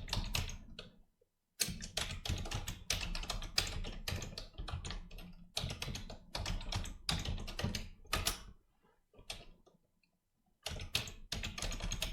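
Typing on a computer keyboard: quick runs of key clicks, with a short pause about a second in and a longer pause of about two seconds near the ninth second.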